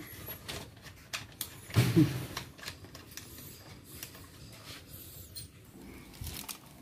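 Soft clicks and rustling as hands handle wiring and plastic tail-section parts under a Yamaha R6's seat. One short, louder low sound comes about two seconds in.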